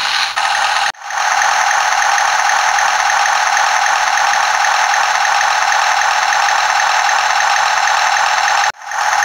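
Great Wall Toys 1:72 RC Tiger tank's built-in simulated engine-idle sound effect, played through the toy's small speaker: a steady, thin, buzzing engine noise with no deep bass. It cuts out briefly about a second in and again near the end.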